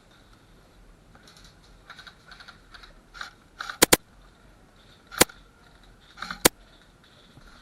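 Airsoft gun shots: four sharp cracks, a quick pair about four seconds in, then two single shots roughly a second and a quarter apart, over faint rustling and ticking.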